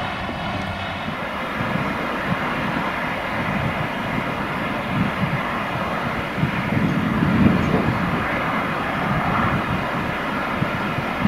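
LMS Princess Coronation Class Pacific steam locomotive 46233 Duchess of Sutherland approaching under steam, its exhaust beats and running noise growing louder about halfway through.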